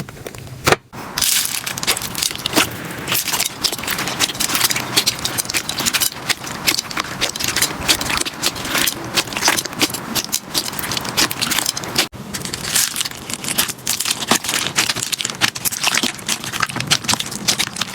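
Slime being squeezed and pressed by hand, giving a dense run of crackling and popping clicks, typical of crunchy slime. The sound breaks off briefly about a second in and again about twelve seconds in, where one clip gives way to the next.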